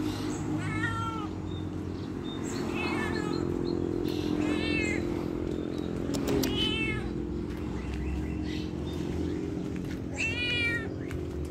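Kitten meowing: five short, high-pitched meows, each rising and falling, a couple of seconds apart. A steady low hum runs underneath.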